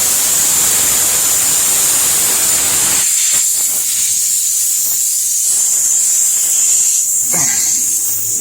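Pressurised air hissing loudly and steadily out of the reamed puncture in a pickup truck's tire, the sign of the tire deflating through the open hole while the plug is not yet in. About three seconds in the lower part of the hiss starts to break up in short gaps.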